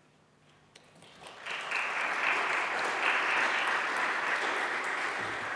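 An audience applauding: the clapping starts about a second in, quickly builds to a steady level and begins to fade near the end.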